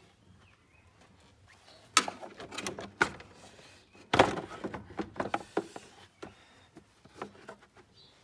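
Hard plastic knocks and clatter as the air filter box and nearby engine-bay parts are handled: a sharp knock about two seconds in, a louder one about four seconds in, then a run of lighter taps and rattles.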